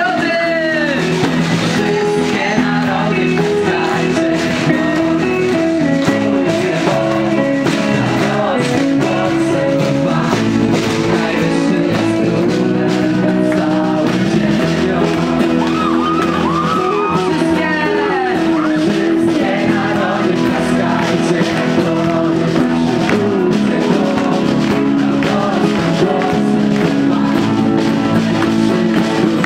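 Lively worship song with singing and instrumental backing, playing loud and steady without a break.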